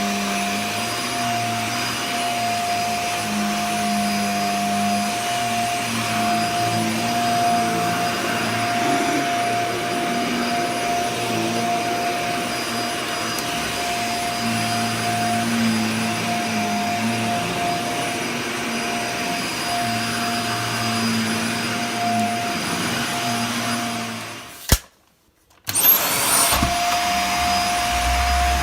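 Dyson Small Ball Multifloor upright vacuum cleaner running steadily while vacuuming carpet, a constant motor whine over its airflow noise. Near the end the sound cuts out abruptly for about two seconds, with a sharp click at each edge, then the vacuum comes back.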